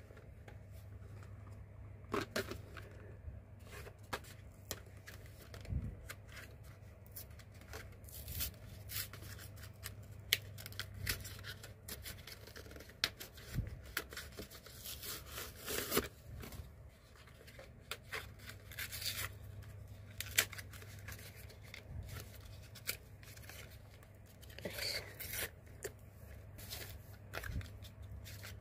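A blister pack of AAA batteries being opened by hand: repeated rustling, crackling and tearing of the card backing and plastic, with many short sharp clicks. A low steady hum runs underneath.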